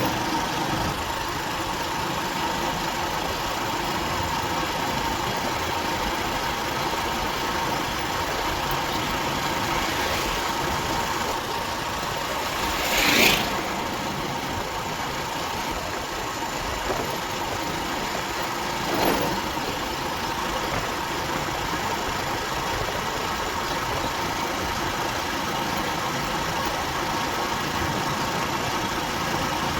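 Motorcycle engine running steadily while riding, heard from on board with road and wind noise. A brief louder whoosh rises and falls near the middle, and a smaller one follows a few seconds later.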